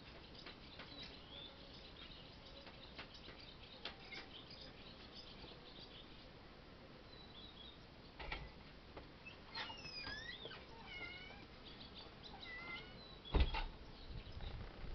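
A few short, high-pitched animal calls with gliding pitch in the second half, over faint scattered ticking, then one sharp loud thump near the end.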